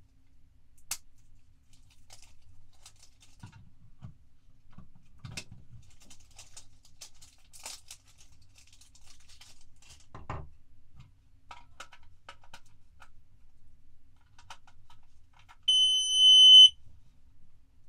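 Faint scattered clicks and light knocks, then near the end a loud, steady, high-pitched electronic beep lasting about a second.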